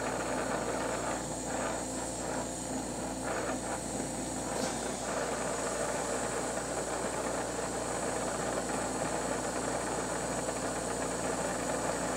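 Glassblowing bench torch flame hissing steadily while a glass pipe is turned and heated in it to seal a joint.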